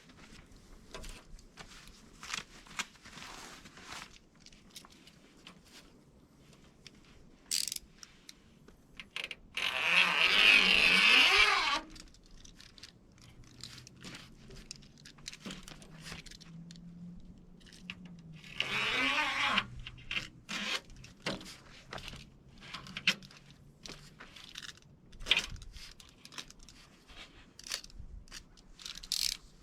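New replacement window-screen mesh being handled and worked on a table: scattered small clicks and rustles, with two louder scraping, tearing passages of about two seconds each, about ten and nineteen seconds in.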